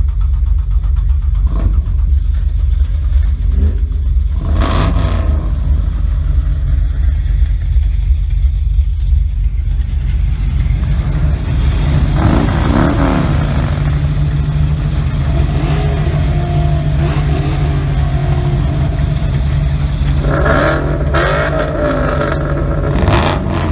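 Vehicle engine running as it drives slowly, a deep steady rumble heard from inside the cab; a steady low engine hum comes up about halfway through.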